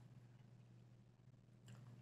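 Near silence: faint room tone with a low steady hum and a couple of faint soft clicks near the end.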